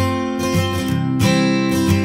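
Background music of a strummed acoustic guitar playing chords.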